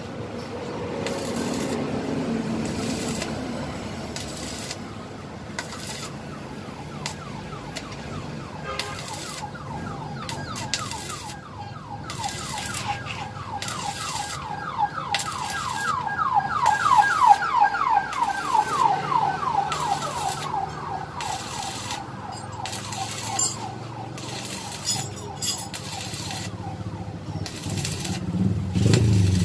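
Stick arc welding on a swing arm: the arc crackles and sizzles in stop-start runs, beginning several seconds in. A fast-repeating rising tone, like a siren or alarm, grows and fades through the middle.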